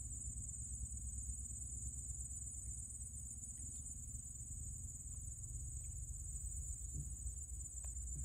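Crickets chirring in a steady, high-pitched chorus, with a low rumble underneath.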